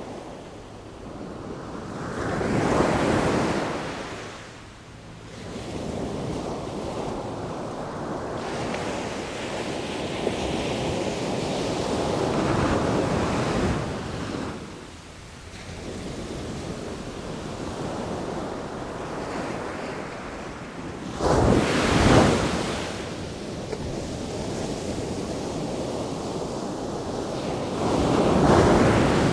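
Sea waves breaking and washing ashore in a steady roar of surf, swelling into a louder surge four times.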